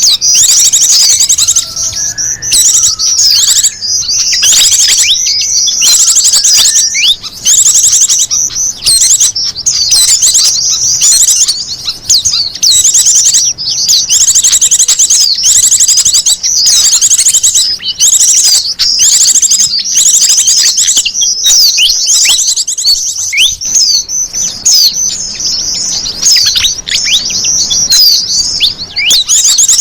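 Small songbirds chirping and twittering in a dense, almost unbroken chorus of high, quick notes: a bird-lure (pikat) recording meant to draw in wild small birds.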